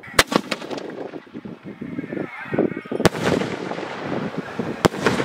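Double-ball aerial firework shells going off: a quick cluster of sharp cracks in the first second, then two loud bangs, one about three seconds in and one near the end, as the shells burst overhead.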